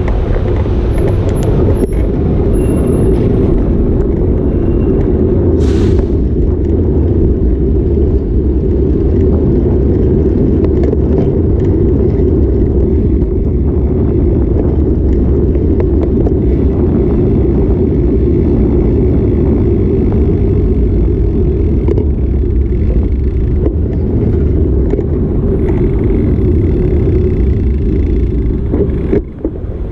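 Steady low rumble of wind and road noise on an action camera carried on a moving bicycle, with city traffic around it; it dips briefly near the end.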